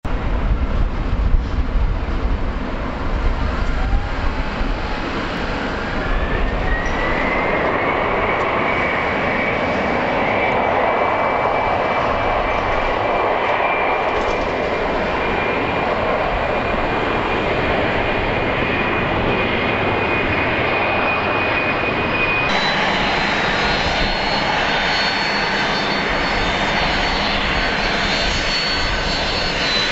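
Twin-engine business jet's turbofans running over a steady jet-engine rush, with a whine that rises and then holds steady. About two-thirds through, the sound changes abruptly to a higher, steady jet whine.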